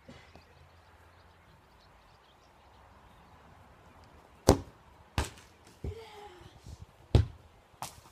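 A football kicked hard on grass, a sharp thud about four and a half seconds in, followed by four more knocks over the next three seconds as the ball strikes the goal's crossbar and bounces away.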